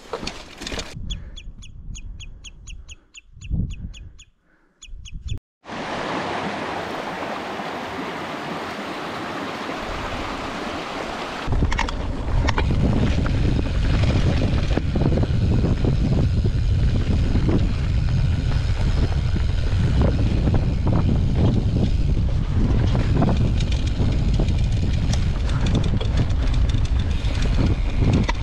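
Wind and trail rumble on the microphone of a moving mountain bike. A short run of rapid, even high ticks comes near the start. Partway through, the sound turns into a much louder, heavy low rumble that carries on to the end.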